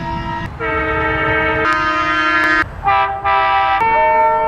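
Diesel locomotive horns sounding in a run of held blasts, each on a different chord and lasting about a second, over the rumble of the train.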